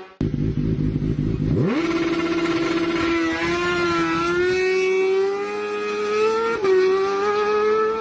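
Kawasaki Ninja sport bike's inline-four engine at high revs. It rises quickly about a second and a half in, then holds a steady high-pitched wail that climbs slowly, with a brief drop and recovery in pitch near the end.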